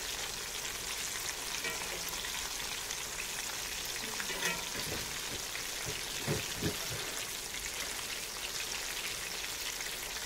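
Breaded catfish nuggets frying in hot soybean-and-peanut oil in a cast-iron skillet: a steady sizzle and crackle of the oil. A few short knocks come as a fork turns the pieces, once about four and a half seconds in and twice around six and a half seconds.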